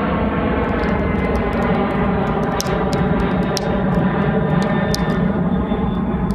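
Low-flying jet aircraft passing overhead: a loud, steady drone whose pitch slowly falls. Over it come sharp, scattered pops and snaps from a crackling wood campfire.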